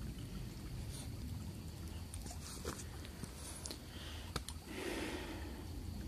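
Shallow creek trickling over stones, under a steady low rumble on the microphone, with a few small clicks and a short rustle about five seconds in.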